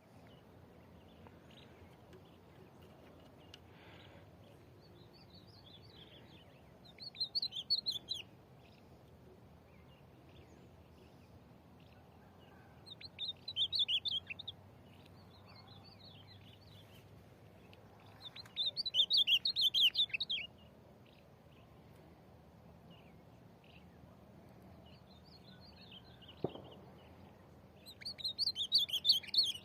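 Ultramarine grosbeaks (azulão) trading song: four loud, rich warbled phrases of a second or two each, answered in between by fainter phrases from a second, more distant azulão.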